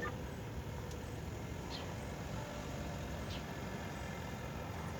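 Steady low rumble of a vehicle engine running nearby, with a few faint, short high chirps.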